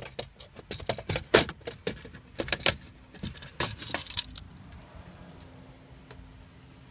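Hard plastic interior trim clicking and clattering in a quick, irregular run of sharp clacks for about four seconds, as a Nissan GT-R centre console piece is worked loose and handled.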